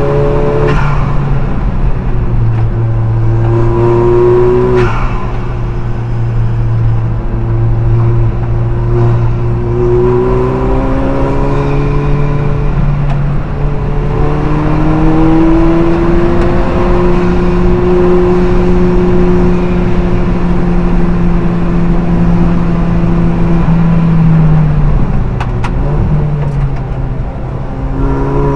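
Alfa Romeo 4C race car's turbocharged four-cylinder engine at racing speed, heard from inside the cockpit. The revs climb in long pulls with a few sudden drops at gear changes, hold high for a long stretch in the middle, then fall away near the end as the car slows and pick up again.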